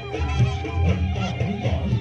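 Live reog Ponorogo accompaniment music: a wavering melody line over steady low drumming.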